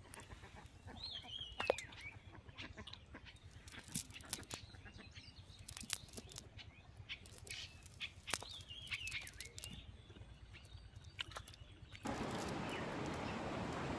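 Scattered light clicks and rustles of a cast net and its weighted sinker line being handled on the ground, with two falling bird chirps. About twelve seconds in this cuts to a louder, steady outdoor noise.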